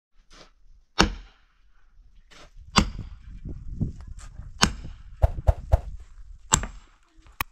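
Hammer blows: about seven sharp knocks at irregular intervals, with a quick run of three a little past five seconds in.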